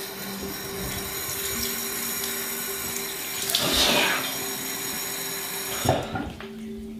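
Bathroom sink faucet running, with a louder splash about halfway through as water is scooped onto a face. The flow cuts off near the end with a short knock.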